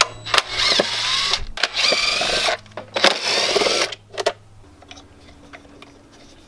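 Spark plug connectors being worked loose on an older Toyota engine: three bursts of squeaky scraping, rubber and plastic rubbing, in the first four seconds. A low steady hum follows.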